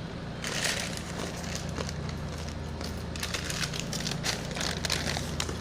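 Crunchy cereal being chewed close to the microphone: a run of quick crackly clicks, densest in the second half, over a steady low hum.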